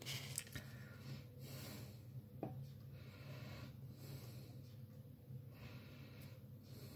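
Faint breathing close to the microphone, a soft puff about once a second, over a low steady hum, with a small click near the start and another about two and a half seconds in.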